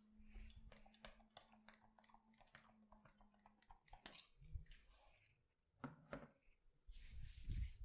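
Faint, irregular light clicks and taps, several a second, thinning out after about four seconds. Near the end a louder rustling noise with dull thumps begins.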